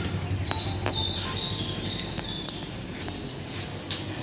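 Scattered light clicks and knocks of a handheld phone being carried and of footsteps while walking downstairs, over low background noise.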